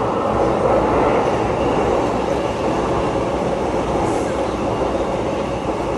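Electric commuter train running on the rails with a steady rumble.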